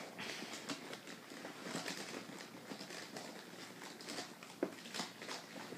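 Items being handled and stowed inside an EMT trauma bag: a stethoscope being put away, with irregular rustling and small knocks.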